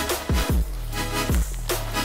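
Background electronic music with a deep bass line and heavy kick-drum hits that drop in pitch.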